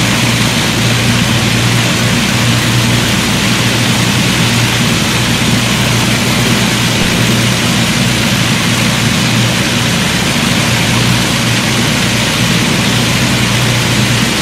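The four Rolls-Royce Merlin V12 engines of an Avro Lancaster bomber running together with their propellers turning, a loud, steady, deep drone that holds unchanged throughout.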